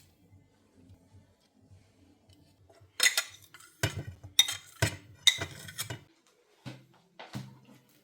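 Kitchen clatter of dishes and utensils: a quick run of sharp clinks and knocks about three seconds in, then two softer knocks near the end.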